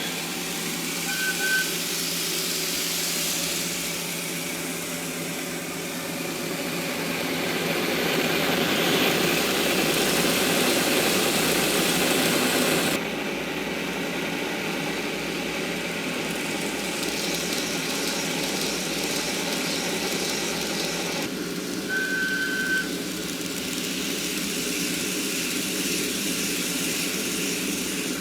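Recorded DD51 diesel locomotive engine sound played from a model-railway sound box, running steadily and dropping abruptly in level about halfway through as the sound changes. A short high tone sounds twice, once near the start and once near the end.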